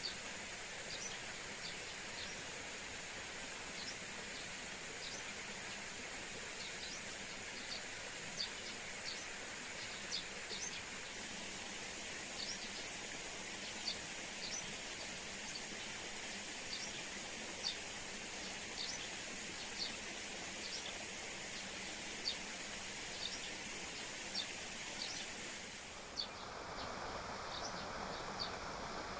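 Tropical forest ambience: a steady hiss with short, high chirps repeating about once a second. Near the end the background changes abruptly.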